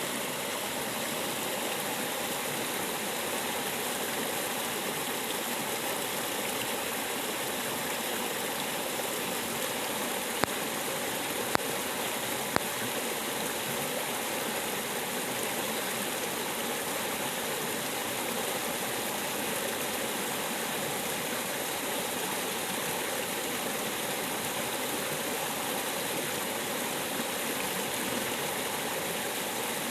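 River water flowing in a steady, even rush. Three short sharp clicks sound about a second apart, near the middle.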